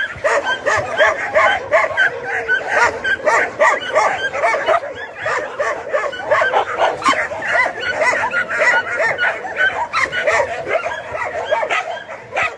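Several dogs barking and yelping at once, a continuous din of overlapping short barks and yips.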